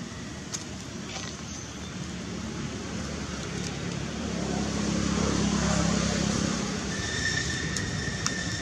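A motor vehicle passing, its engine hum swelling to a peak around the middle and fading, over steady outdoor background noise. A thin high tone sounds near the end.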